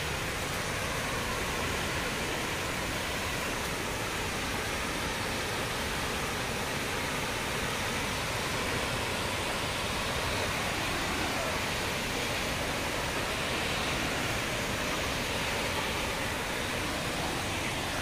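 Steady, even rushing of the Darbat waterfall's falling water.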